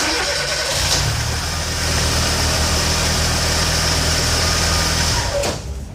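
A machine motor starts abruptly and runs steadily with a low hum and a hiss, then stops about five and a half seconds in.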